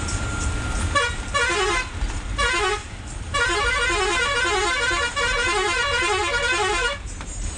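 Ashok Leyland bus's musical horn sounding over the engine's low rumble: two short warbling blasts about a second in, then a longer run of rising-and-falling repeating notes for about three and a half seconds, ending shortly before the end.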